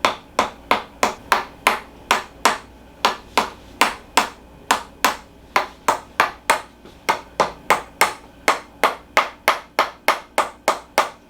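Rhythmic tapping over the lower sacroiliac joint area, meant to loosen the joint: sharp, clicking taps at about three a second, with a brief pause about two and a half seconds in.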